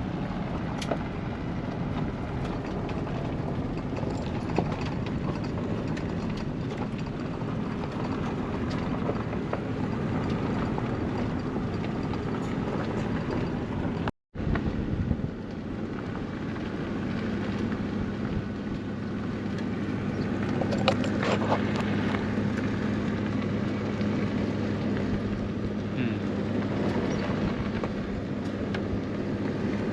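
Vehicle running steadily: a low engine hum under road and wind noise, with a brief dropout about halfway through.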